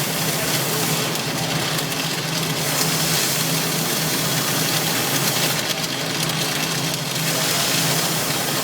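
Stick welding arc crackling and hissing steadily, over a steady low hum from the welding setup.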